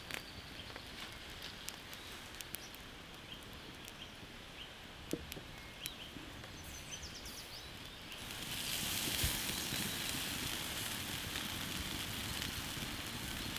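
Wood embers crackling under a whole pig roasting on a spit, with sparse sharp pops. About eight seconds in, a louder steady sizzle of the pig's skin and fat takes over.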